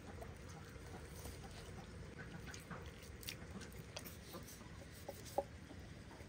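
Raw chicken skin being pulled off the meat by hand: faint, scattered small wet clicks and peeling sounds, with one sharper click near the end, over a low steady background hum.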